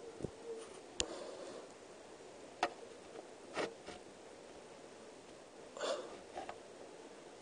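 Faint handling noises of a VHS cassette turned over in the hands: a few sharp plastic clicks and short rustles, spread out over a quiet room.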